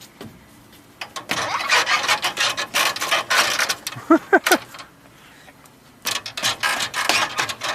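Rasping, scraping rub of a child sliding down a plastic playground slide, with a short child's vocal sound about four seconds in.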